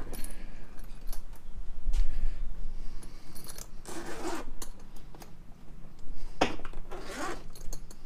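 Zipper of a Veto Pro Pac MC tool bag being pulled open: two long rasping pulls, one about halfway through and one near the end, with shorter scrapes between them. A few light metallic clinks come from the hand tools inside.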